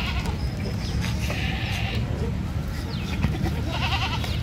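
Sirohi goats in a herd bleating: one call about a second in and another, wavering, near the end, over a steady low rumble.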